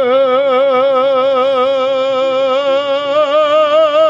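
A man's voice holding one long sung note with a wavering vibrato, the drawn-out line of a Kashmiri noha lament chant.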